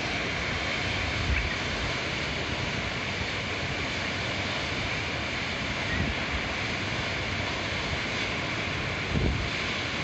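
Steady rushing of a river in flood, swollen by a typhoon, with a few gusts of wind buffeting the microphone, the strongest near the end.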